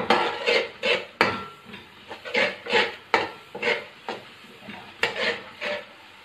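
Metal spatula scraping and stirring a spice masala being fried in oil in a steel karahi: repeated scrapes of metal on the pan, about two or three strokes a second.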